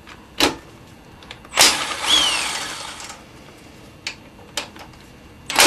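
The brake caliper's 8mm Allen bolts being worked loose: a few tool clicks, then a harsh mechanical burst of about a second and a half with a short falling squeal, and another burst starting near the end.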